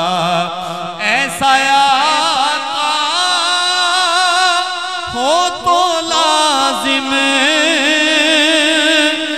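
A man's voice singing a drawn-out, wavering melismatic line of an Urdu devotional kalam into a microphone, with no words breaking the held notes.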